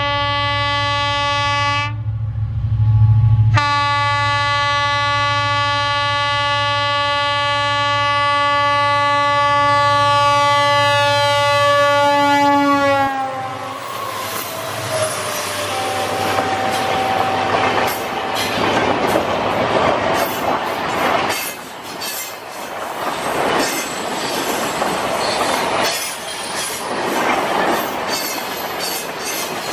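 Twin WDG4D diesel locomotives' horn blown in a long, loud blast over the engines' rumble, broken briefly about two seconds in, then held for some ten seconds, its pitch dropping as the locomotives pass. Then the express coaches run by with a rhythmic clickety-clack of wheels over rail joints.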